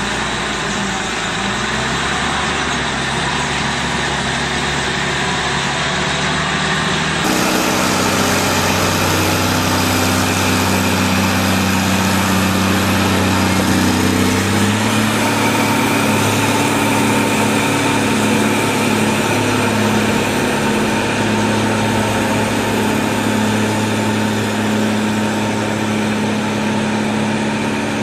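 A heavy machine's engine running steadily. About seven seconds in the sound changes abruptly, and around fifteen seconds the engine note steps up a little higher and holds there.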